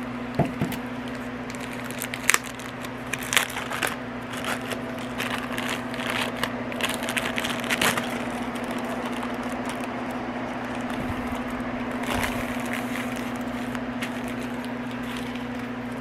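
Crackling and rustling of a diamond painting canvas and its packaging being handled, busiest in the first half, over a steady low hum.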